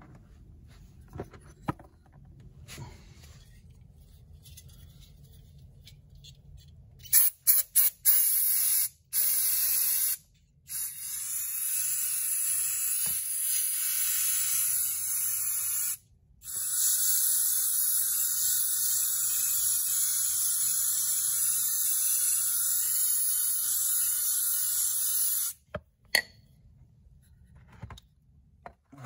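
Aerosol cleaner sprayed onto a clogged, soot-covered engine part: a few short hisses about a quarter of the way in, then long hissing sprays of several seconds each with brief breaks, stopping shortly before the end.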